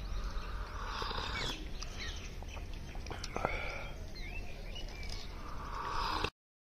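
Small birds chirping and twittering in short calls over a steady low rumble. The sound cuts off suddenly a little over six seconds in.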